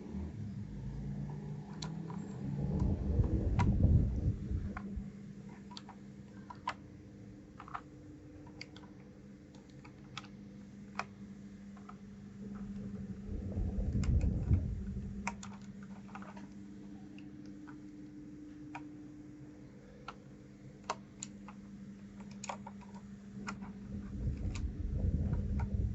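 Scattered sharp clicks and clacks from the keys of a 1st Player DK 5.0 mechanical keyboard being worked by hand, with louder low handling rumbles about three, fourteen and twenty-five seconds in, over a steady low hum.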